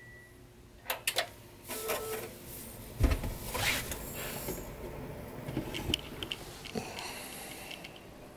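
Desktop computer being switched on at its power button: a few sharp clicks, a heavy thump about three seconds in, then a steady whir as the machine powers up, with a few more light clicks.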